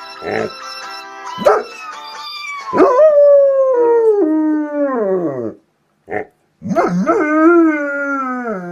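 Dog howling along to a phone ringtone: two long howls that slide down in pitch, with a short yip between them.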